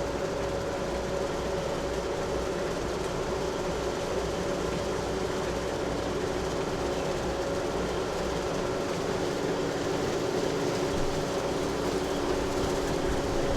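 Farm tractor engine running steadily at constant speed, a continuous hum with a few held tones.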